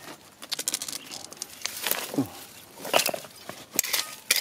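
Small hand pick chopping into dry, stony soil: irregular strikes and scrapes of the metal blade against dirt and stones, with loose earth pattering down.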